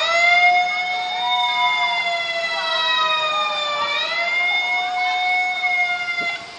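A horn sounding one long, loud held tone whose pitch sags slowly and then jumps back up about four seconds in, stopping just before the end.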